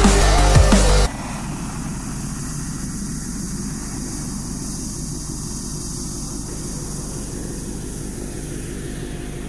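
Electronic music with a heavy beat cuts off about a second in. A steady propeller-aircraft engine drone follows, quieter than the music, serving as the sampled lead-in to an airplane-themed track.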